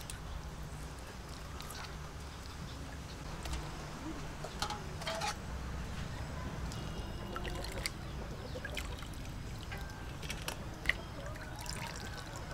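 Water trickling and sloshing in a metal bowl, with small splashes and drips, as squid is rinsed and cleaned by hand. Scattered light clicks sit over a low steady rumble.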